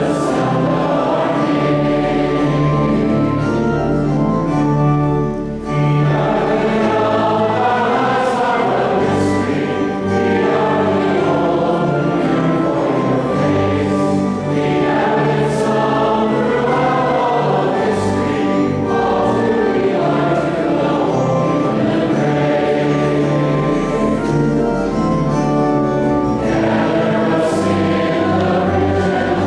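Church choir singing a processional hymn in a large reverberant church, with sustained low notes held beneath the voices.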